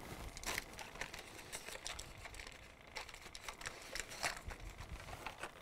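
Faint, irregular clicking and crinkling, a few small clicks a second: small handling noises.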